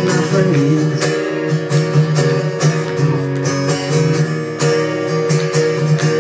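Acoustic guitars strumming and picking a country song's instrumental passage, with steady rhythmic strokes under ringing notes.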